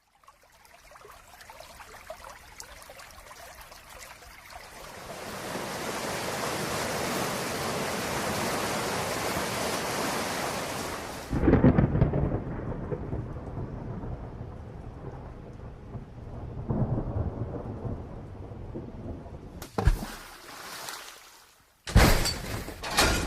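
Rain building to a heavy downpour, which breaks off into a loud clap of thunder about halfway through. Lighter rain and rumbling follow, then sharp cracks and a loud crash near the end.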